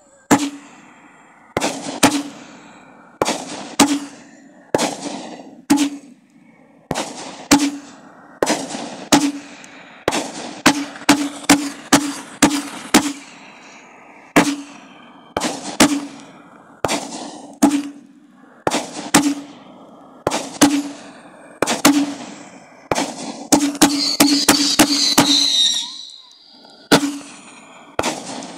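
A 42-shot 'Bamboozled Brothers' consumer firework cake firing shot after shot. Each tube gives a thump on launch and a sharp crack as it bursts, roughly one a second, with quicker rapid-fire flurries along the way. There is a dense, hissing stretch a little before the end.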